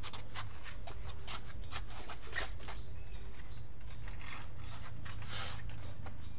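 Irregular rustling and scraping, many short scrapes and clicks in quick succession, over a steady low hum.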